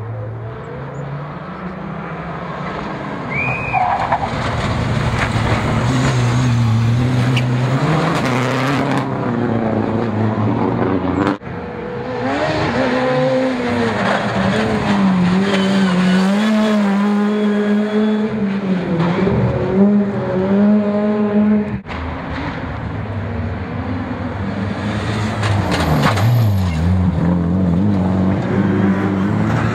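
Rally car engines revving hard and changing gear as the cars drive through corners, in three clips cut one after another about 11 and 22 seconds in. The middle clip is a Ford Fiesta and the last a Mitsubishi Lancer.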